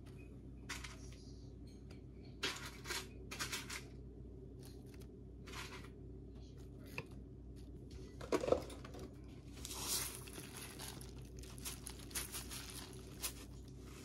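Scattered short rustles and crinkles of food packaging and food being handled while the salad is topped, the strongest about eight and a half seconds in, over a low steady hum.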